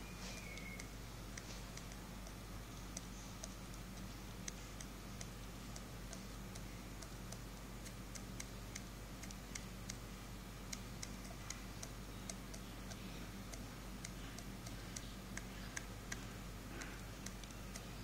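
Baby budgie pecking at seed in a steel bowl: a run of small, sharp, irregular clicks, several a second, over a steady low hum.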